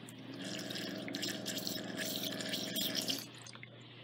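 Earigator ear irrigator flushing water into the ear canal, a steady pump hum with water splashing and trickling into the drainage basin. It runs for about three seconds and stops near the end. The flush is washing a big chunk of earwax out of the canal.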